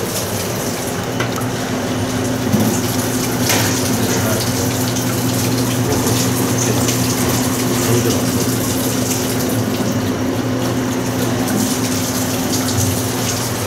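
Daewoo washing machine draining while water is supplied: a steady hum with running water going out through the drain hose. This is the check for a continuous-drain fault, where the machine drains as it fills.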